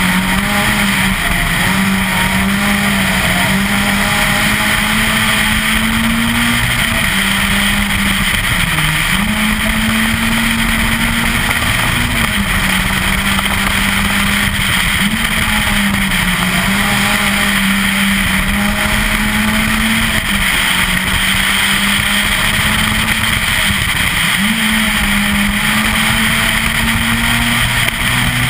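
Citroën Saxo VTS 16V rally car's 1.6-litre 16-valve four-cylinder engine running hard at high revs, holding a steady note with brief dips in pitch every few seconds at lifts and gear changes, over loud tyre and wind noise.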